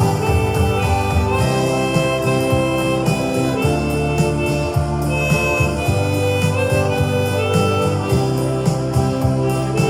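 Chromatic harmonica playing a slow melody in C, with held notes, over an accompaniment with a bass line and a steady beat.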